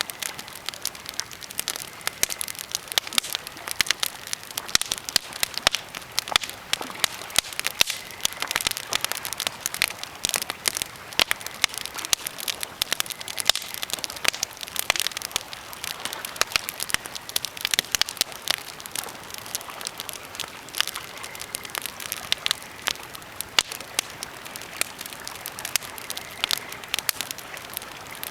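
Birch and pine campfire crackling, with a dense, irregular stream of sharp pops and snaps.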